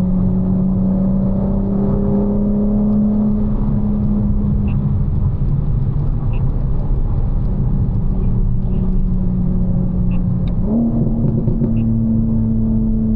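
BMW G82 M4's twin-turbo inline-six engine running while the car is driven, a steady drone over road noise. About eleven seconds in, the engine's pitch rises quickly as the revs climb, then holds.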